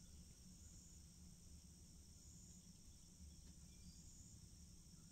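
Near silence: faint steady trilling of insects such as crickets, swelling slightly at regular intervals, over a low hum.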